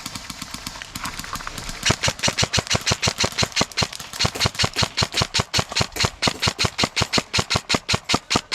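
Airsoft gun firing a long, steady string of sharp shots, about five a second, starting about two seconds in.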